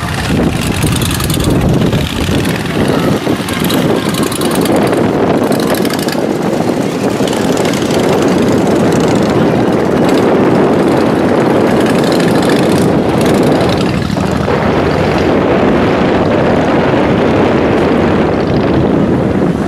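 Steady, loud noise of propellers and motor during flight, mixed with wind buffeting the microphone.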